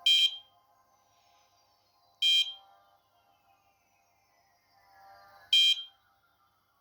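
Three short, high-pitched electronic beeps from the fishing-alarm base unit's buzzer, about two and three seconds apart. They are the warning the base gives when a sensor has not answered within its timeout.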